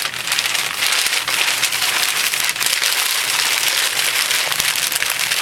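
Sheets of packing paper crinkling and crackling continuously as they are handled and pulled open to unwrap a bottle.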